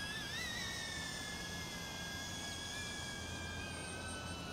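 DJI Avata FPV drone's motors and propellers whining in flight. The pitch wavers near the start, then slowly falls.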